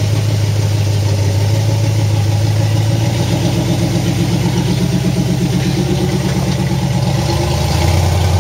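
1977 Chevy Suburban's built 400 cubic-inch small-block V8 running at low revs as the truck crawls over rough ground, the revs rising a little about three seconds in and falling back near the end.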